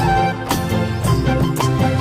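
Background music with a steady beat, in an Indian film-music style.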